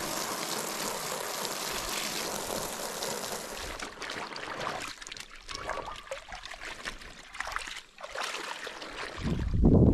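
Garden hose spray nozzle hissing steadily as it sprays water onto a wet canvas tarp in a plastic tub, stopping about four seconds in. Then irregular water sloshing as the soaked canvas is worked by hand in the tub, with a louder low rumble near the end.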